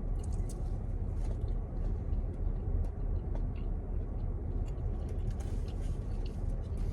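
Steady low rumble inside a car, with faint scattered clicks and rustles from eating chicken wings.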